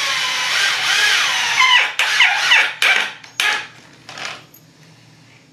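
Cordless drill driving 3-inch drywall screws into the wooden frame pieces, the motor's whine wavering in pitch as the screw bites. One long run is followed by several short bursts, and the drill stops about four and a half seconds in.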